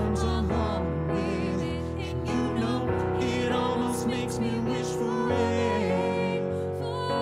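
A woman's and a man's voices singing wordless harmony lines with wavering, sliding runs over piano accompaniment.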